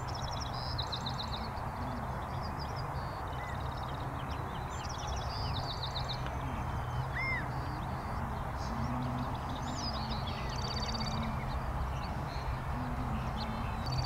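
Steady wind noise with small birds chirping and trilling again and again, and a few short low calls from other birds.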